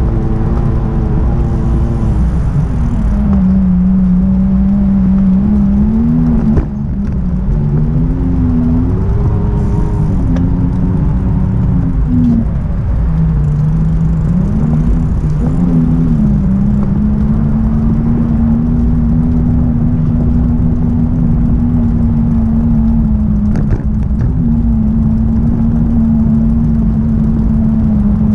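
Whine of a small electric vehicle's motor. Its pitch dips and rises several times as the vehicle slows and speeds up, then holds steady, over a constant low rumble of rolling and wind.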